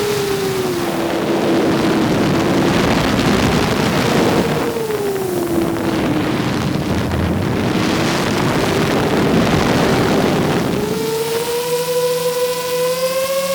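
FPV drone motors and propellers whining, the pitch dipping and climbing as the throttle changes, under a heavy rush of air. Near the end the rushing eases and the motor whine rises steadily, with its overtones clearer.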